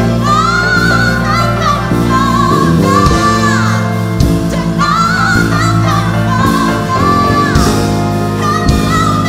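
Worship song played live by a band of electric bass, stage piano and synth keyboards, and drums, with a sung melody over it.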